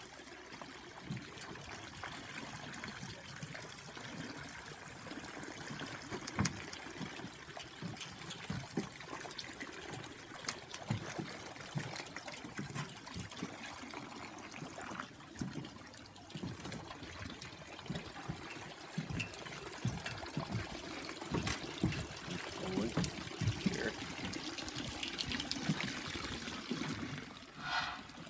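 Water sloshing and bubbling irregularly around a submerged boat lift frame as an inflatable lift air bag is pumped up underwater and rises to the surface.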